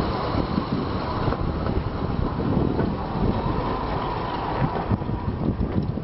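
RM64 railmotor's eight-cylinder petrol engine running as the little railcar drives past along the track, with wind buffeting the microphone.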